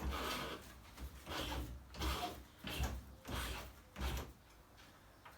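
A T-bar and socket turning a freshly loosened subframe tower bolt out of a classic Mini: about six rough scraping strokes of metal working on metal, roughly one every two-thirds of a second, stopping about four seconds in.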